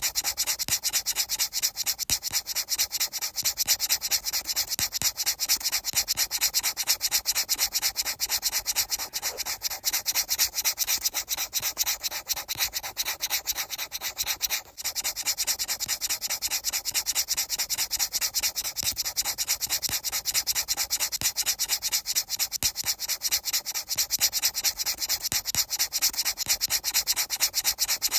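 Fast, even rubbing strokes, several a second, repeating without let-up except for a brief break about halfway through.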